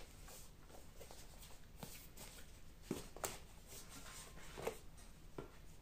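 Faint handling sounds of a cardboard pistol box being moved and set down on a wooden workbench: a few light knocks and rustles, the clearest about three seconds in.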